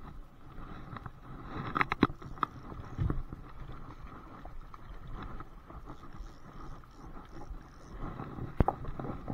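A hooked coho salmon splashing at the river surface, over a steady hiss of running water. A few sharp knocks and clicks come from handling near the microphone, in a cluster about two seconds in, once near three seconds and once near the end.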